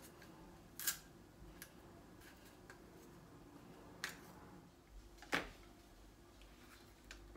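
Small plastic saffron container being handled and prised open: four sharp clicks, the loudest about five seconds in, over a faint steady hum.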